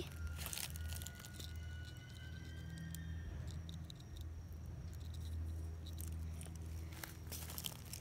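Faint scratching and crackling of fingers handling a live cicada against rough tree bark, with a few sharper scrapes soon after the start and again near the end, over a low steady hum. A faint thin tone is held for about three seconds near the start.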